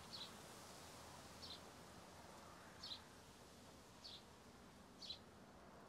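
A bird chirping faintly: five short, high chirps spaced about a second apart.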